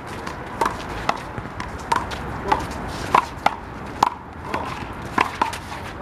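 Rubber handball being slapped by players' hands and hitting the wall and the court during a doubles rally: about ten sharp smacks in an uneven rhythm, roughly one every half second.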